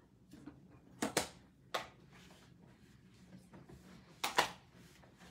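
A few light clicks and knocks of craft supplies being handled and set down on a tabletop: a double tap about a second in, a single one near two seconds, and a louder double knock just after four seconds, over a faint steady hum.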